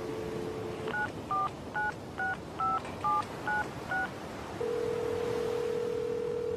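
Telephone line sounds: a steady dial tone stops about a second in, eight touch-tone (DTMF) digits are keyed at about two a second, and a steady ringing tone starts about half a second after the last digit.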